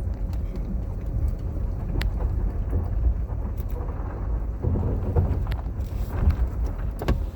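Vehicle driving over a snow-covered frozen lake, heard from inside the cab: a steady low rumble with scattered knocks and clicks.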